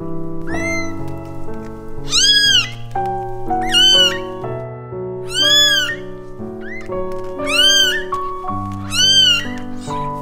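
Newborn kittens mewing: about six high, thin cries that rise and fall, one every second or so. Soft piano music plays under them.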